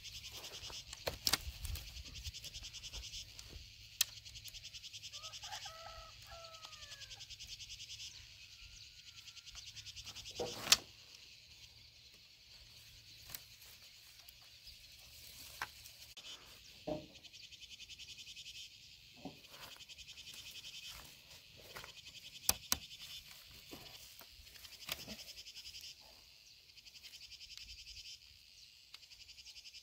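A steady, finely pulsing chorus of insects, with scattered clicks and knocks from wooden poles being handled and tied into a bundle. The sharpest knock comes about eleven seconds in. A bird calls briefly around six seconds in.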